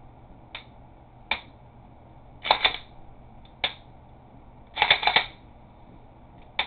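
Glock pistol being dry-cycled in a function check after reassembly: sharp single clicks of the trigger being squeezed off and reset, and twice a short burst of metallic clicks as the slide is racked back and let go.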